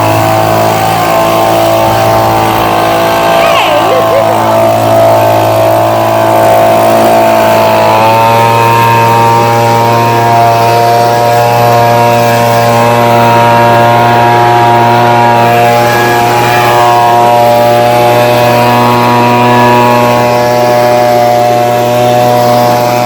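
Echo PB-2520 handheld leaf blower's two-stroke engine running steadily, blowing air; its pitch steps up slightly about eight seconds in.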